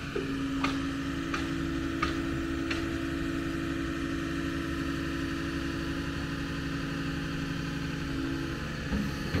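John Deere 210G excavator's diesel engine running steadily at a constant speed. A faint tick comes about every two-thirds of a second during the first few seconds.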